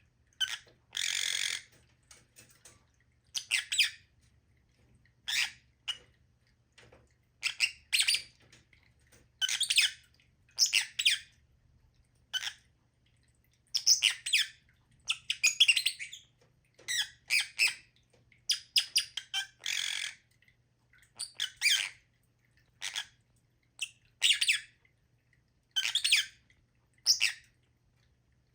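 Lovebirds calling: short, shrill squawks and chirps in clusters every second or two, with brief pauses between. A faint steady low hum runs underneath.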